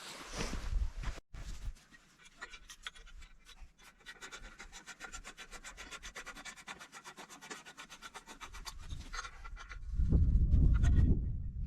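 Ratchet wrench clicking rapidly and evenly, about nine clicks a second, as a bolt is turned down on an engine mount. Near the end a loud low rumble.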